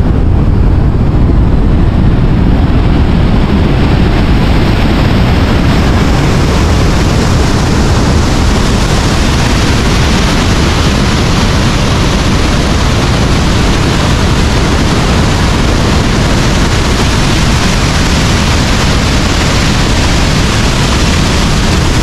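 The American Falls at Niagara crashing onto the rocks close below: a loud, steady rush of falling water. It turns brighter and hissier from about six seconds in, as the falls come into close view.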